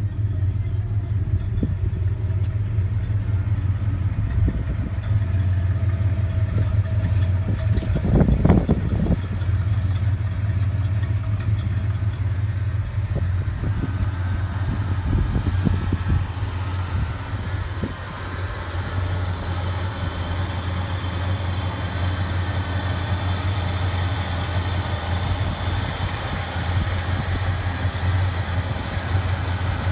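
1965 Pontiac GTO's 389 V8 with a Melling hydraulic 068-grind cam and a Holley 650 double-pumper carburettor, idling steadily. There is a single loud thump about eight seconds in. A brighter hiss builds over the idle through the second half.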